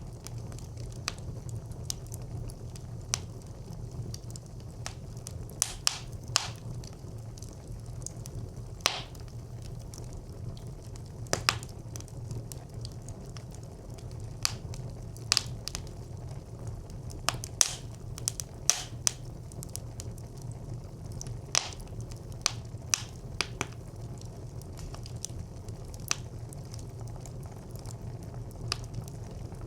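Wood fire burning in a brick clay stove: a low steady rumble of flames with irregular sharp crackles and pops from the burning wood, several standing out loudly.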